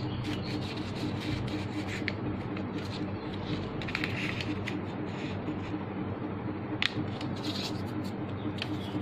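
A square sheet of origami paper being folded and creased by hand, rustling and rubbing against the board in irregular crinkles, with a sharp click about seven seconds in.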